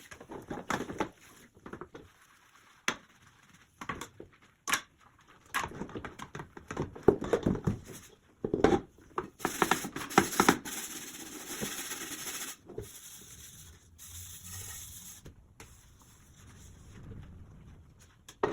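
Kitchen work sounds: scattered knocks and clicks of things being handled, busier in the middle, with a few seconds of hissing noise about ten seconds in.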